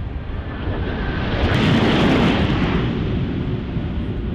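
Jet engine roar from four Blue Angels F/A-18 Super Hornets flying past in diamond formation. It swells to a peak about two seconds in and then eases off.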